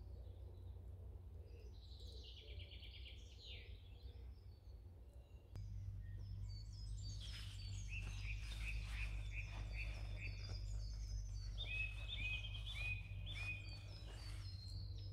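Several wild birds singing in woodland: a trill about two seconds in, then many repeated chirping calls through the second half, over a low steady rumble.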